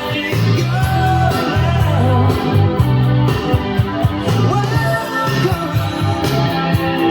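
A rock song with guitar, a pulsing bass line and singing, played through mid-century modern Danish loudspeakers.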